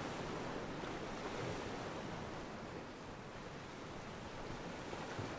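Ocean waves washing against a pier: a steady, even wash of water noise.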